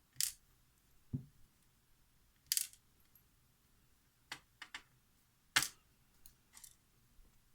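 Small metal lock pins clinking as they come out of the lock and land on a hard surface: three sharp clinks and several lighter ticks, with a duller knock about a second in.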